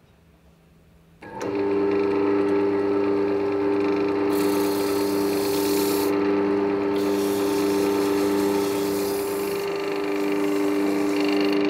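Wood lathe motor running with a steady hum, starting about a second in. Twice the hiss of sandpaper rises over it, pressed against the spinning micarta sphere of layered craft paper and epoxy resin.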